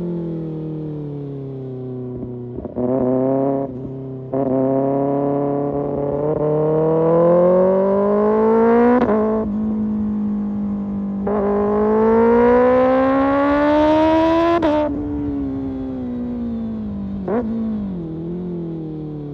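2025 Kawasaki Ninja ZX-6R inline-four through an Arrow Pro Race exhaust, under way. Revs fall at first, the throttle opens briefly, then the engine pulls with rising pitch in two long climbs, each ending in a sharp break. After that the throttle closes and the revs fall, with a quick blip partway down.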